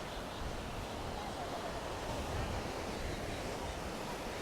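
Beach ambience: wind buffeting the microphone with a gusty low rumble over a steady wash of surf, with faint distant voices.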